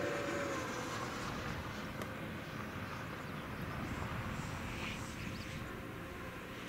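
Radio-controlled F-104 Starfighter model jet flying high overhead: a steady engine whine that drops slightly in pitch about half a second in, over a continuous low rushing noise.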